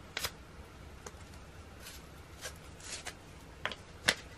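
Scattered light rustles and clicks of photocard sleeves and mailer packaging being handled, with the sharpest click about four seconds in.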